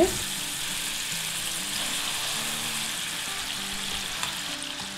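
Chicken pieces coated in a wet spice paste sizzling steadily in shallow hot oil in a nonstick frying pan as more pieces are laid in one by one.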